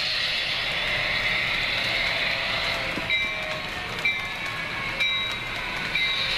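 HO-scale model train of bi-level passenger cars rolling along the track with a steady rolling hiss. From about halfway through, sharp clicks come roughly once a second as the wheels cross rail joints.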